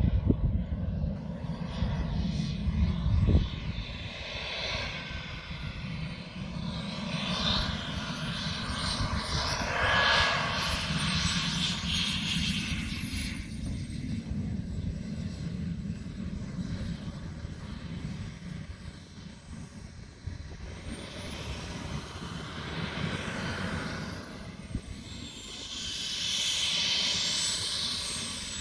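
Small model turbine jet engine of a radio-controlled F-16 running through landing and taxiing. A thin high whine glides up and down with the throttle, with a rushing exhaust noise that swells twice. A low rumble fills the first few seconds.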